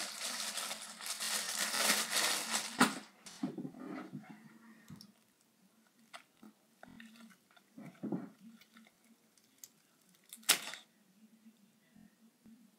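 Hand-handling noise of Model Magic clay butter slime being pulled and squished close to the microphone. About three seconds of rustling, then faint scattered crackles and clicks, with one sharp click about ten and a half seconds in.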